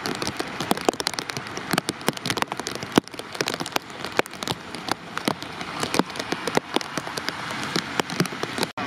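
Rain falling, with many irregular sharp taps of drops striking close to the microphone over a steady hiss. It cuts off abruptly near the end.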